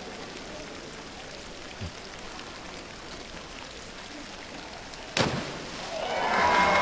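Steady rain-like hiss of water from the diving pool's surface sprinklers. About five seconds in comes the sharp splash of a platform diver entering the water, and then applause with music swells up.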